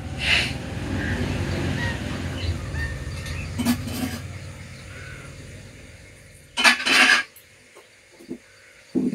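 Steel kitchen utensils clinking and knocking over a low steady rumble that fades away about six seconds in. Two loud clanks come close together near the end.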